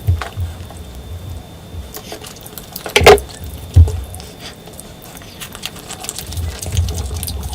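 Close-miked eating sounds of someone eating curry and rice: wet chewing and mouth clicks. There is a sharp, loud smack about three seconds in and a heavy chomp just after it.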